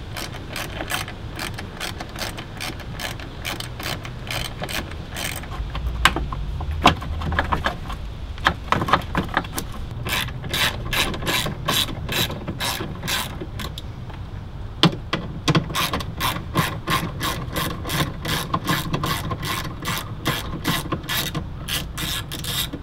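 Hand ratchet clicking as it backs out 8 mm screws holding the headlight, in runs of quick clicks at about four a second with short pauses between runs.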